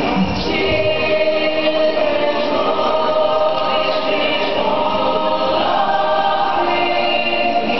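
Christmas parade music with a choir singing long held notes over the accompaniment.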